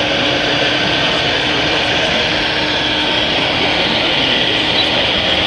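RC model trucks running: a steady mechanical noise from their motors and drives, with a faint steady hum under it.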